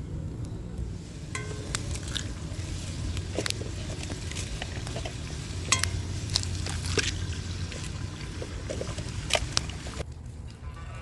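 Cooking sounds at a camp stove: metal utensils and cookware clinking and knocking at irregular moments, over a steady low rumble. The sound changes about ten seconds in.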